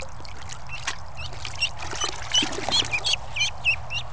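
Ducklings peeping: a quick string of short, high chirps, several a second.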